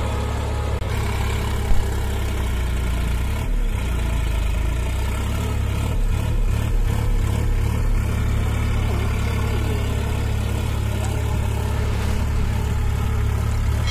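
Solis Yanmar 5015 tractor's three-cylinder 50 hp diesel engine running steadily under load, pulling a tine cultivator through the soil. A brief thump just under two seconds in.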